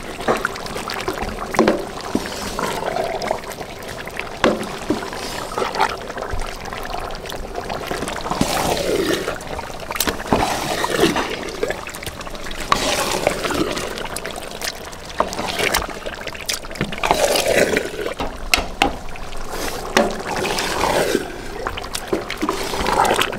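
A long wooden spoon stirring raw chicken pieces through thick, wet curry sauce in a large aluminium cooking pot: irregular sloshing strokes with scattered sharp clicks.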